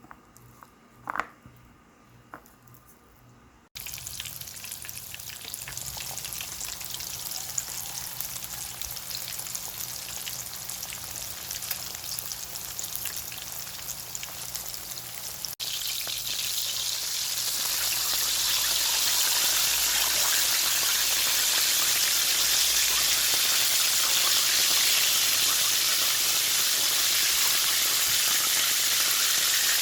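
Chicken frying in hot oil: a steady sizzle that cuts in suddenly about four seconds in and gets louder partway through. Before it there is a quiet moment with a small click.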